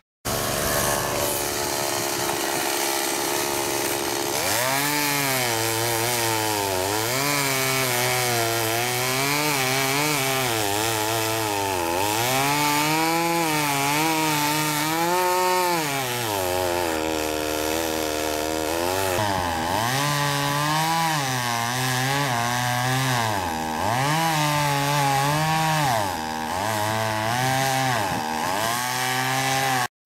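Chainsaw cutting into a dead tree trunk, its engine pitch rising and falling again and again as the bar bites into the wood. It eases off for a few seconds about halfway, then revs up and cuts on.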